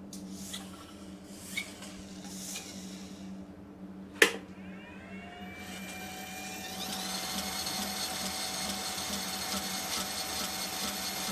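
Homemade 2x48-inch belt grinder on its variable-speed controller: some handling rustle, then a sharp click about four seconds in. After the click the motor and belt spin up in a whine that rises for two to three seconds, then run at a steady pitch with a thin high squeal. The belt is running on the small-wheel attachment for a test.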